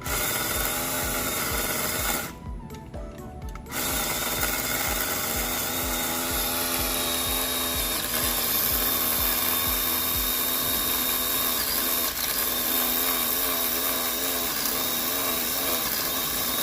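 Craftsman 20-volt cordless pole saw's electric motor and chain running. It stops for about a second and a half a couple of seconds in, then runs on steadily.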